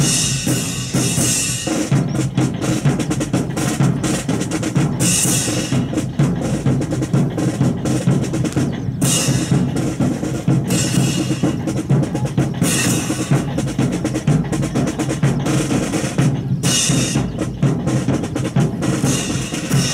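Drums playing a steady marching beat on snare and bass drum, with a bright splash of sound every three to four seconds.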